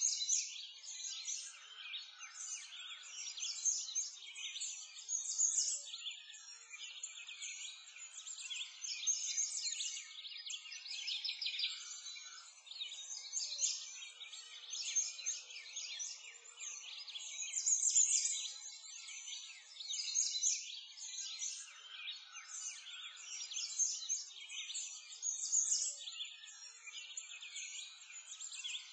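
A dense chorus of many small songbirds chirping and trilling without pause, all high-pitched, with no low sounds beneath.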